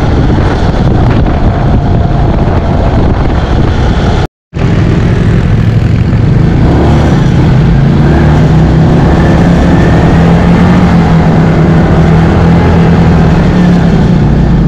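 ATV engine running steadily while the quad is ridden, heard from the machine itself. The sound cuts out completely for a moment about four seconds in, then the engine drone resumes.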